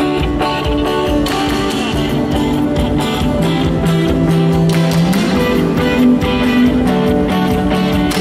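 Live band playing an instrumental passage with strummed guitar over bass and sustained chords; one low note slides upward about five seconds in.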